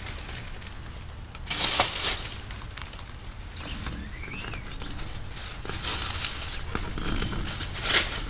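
Pipe wrap tape being pulled and wrapped by hand around foam pipe insulation on an air conditioner line. The tape crackles and rustles, loudest in a burst about one and a half seconds in and again near the end.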